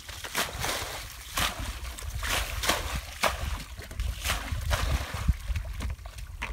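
Muddy water splashing and sloshing in irregular strokes, about one or two a second, as a plastic bucket scoops water out of a shallow rice-field ditch and dumps it, bailing the ditch dry to get at the fish.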